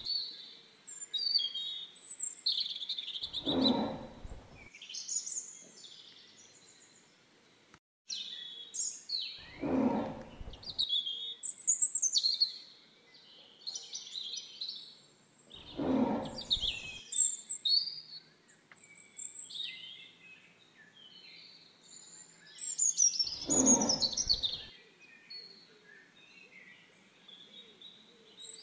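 Tiger roaring: four rough roars of about a second each, some six seconds apart, over continual high bird chirping. The sound drops out briefly about eight seconds in.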